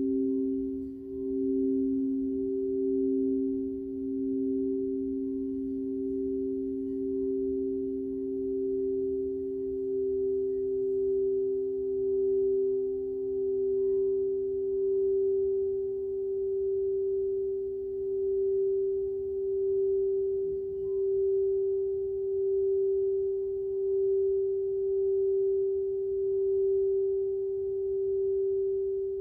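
Two frosted crystal singing bowls played with mallets, sounding together as a sustained hum of two steady tones that swells and ebbs slowly. The lower tone fades out about two-thirds of the way in, leaving the higher bowl ringing on.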